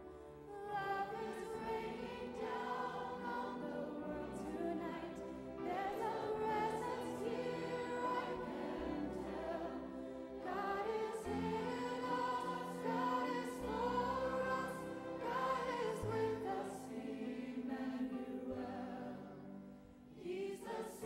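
A woman singing a slow Christmas song with choir and instrumental accompaniment, with a brief dip in loudness shortly before the end.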